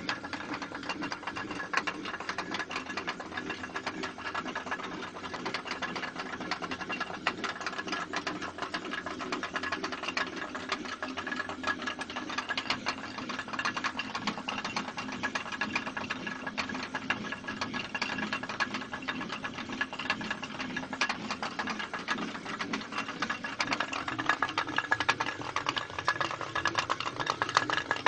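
Traditional Ladakhi water mill (ranthak) grinding flour: the turning millstone gives a steady, fast, dense rattle with a faint hum underneath.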